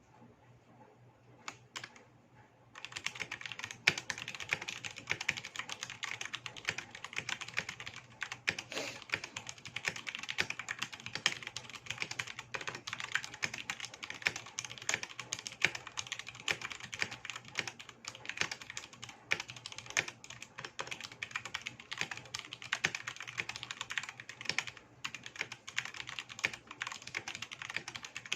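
Royal Kludge RK61 mechanical keyboard with stock Huano brown switches, DSA keycaps and 2 mm EVA dampening foam being typed on: a couple of single key presses about one and a half seconds in, then fast, continuous typing from about three seconds in.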